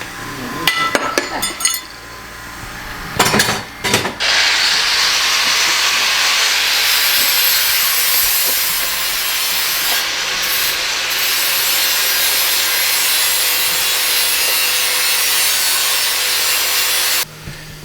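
A power tool cutting sheet steel for a car sill repair. A few sharp knocks come first; about four seconds in, a loud, steady cutting noise starts and runs on until it stops abruptly shortly before the end.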